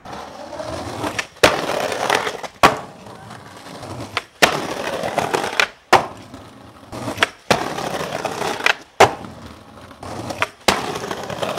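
Skateboard wheels rolling over rough pavement, broken every second or two by sharp clacks of the board's tail popping and landing.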